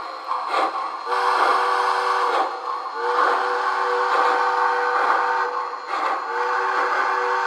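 Onboard sound system of an MTH HO-scale Triplex steam locomotive model blowing its chime steam whistle three times, the middle blast the longest, over rhythmic exhaust chuffs. The sound is thin, with no bass.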